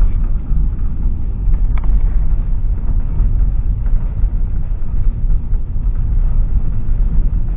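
Steady low rumble of a vehicle driving on an unpaved dirt road, heard from inside the cabin: tyre and road noise over the engine.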